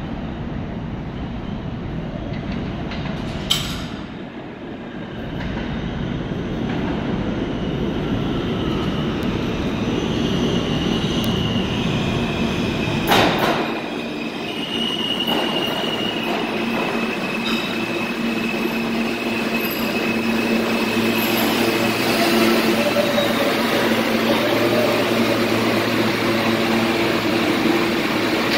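New York City Subway R160 train pulling into an underground station: a low rumble of wheels on the track that builds over several seconds, with a sharp clack about 3 seconds in and another about 13 seconds in, and a high squeal of wheels and brakes as it slows. It then stands at the platform with a steady electrical hum.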